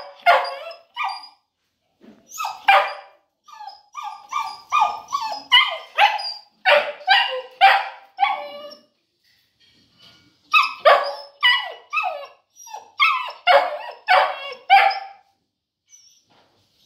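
Boerboel puppy barking in repeated runs of about two barks a second, with short pauses between the runs.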